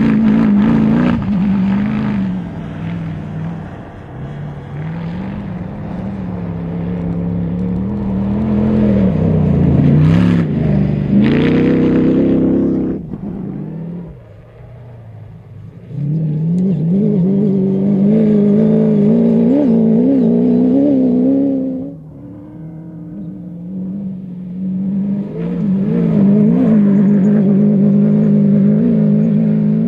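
Rally-raid buggy engines revving hard over and over, pitch climbing and dropping with throttle and gear changes, across several passes; the sound falls away twice briefly.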